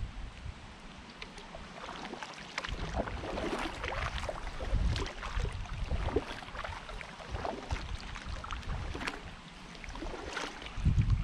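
Kayak paddle strokes: the blades of a Braca VII Max paddle dip in and pull out of still water on alternating sides, with irregular splashes and drips. A low rumble rises near the end.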